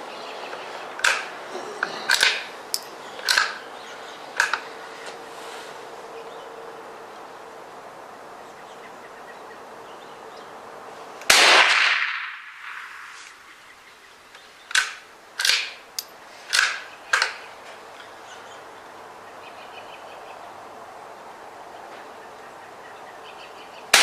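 A .22 LR rifle shot from a Savage Mark II bolt-action rifle about eleven seconds in: a loud crack with a ringing tail. Two groups of shorter, quieter sharp cracks come before and after it, one group in the first few seconds and five in quick succession a few seconds after the loud shot.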